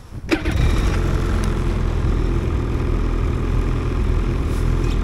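2018 Ski-Doo XRS 850 Renegade's two-stroke engine starting up about a second in, then running steadily at low revs.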